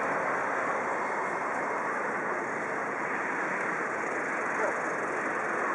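Steady, even outdoor background noise with no distinct events: distant crowd and rail-yard ambience.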